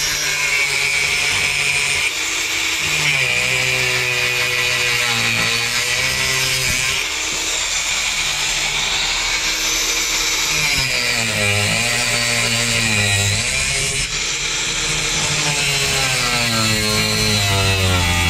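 Cordless Makita angle grinder grinding the flange off an old through-hull fitting in a fibreglass boat hull: a steady, loud grinding hiss, with the motor's pitch sagging and recovering several times as it is pressed into the work.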